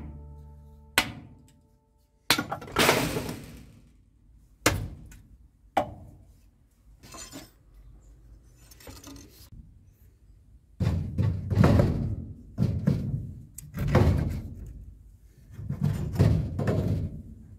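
Background guitar music fades out over the first two seconds. Then come a few sharp wooden knocks of the steel billhook against split wood and the chopping block, followed by bursts of scraping and rustling handling noise as the billhook is picked up and hung on a wall.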